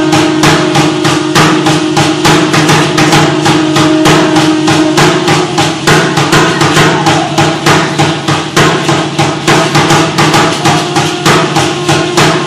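Aztec ceremonial drumming: an upright huehuetl drum beaten in a fast, even beat of about four strikes a second, mixed with the shaking of the dancers' ankle rattles, over a steady droning tone.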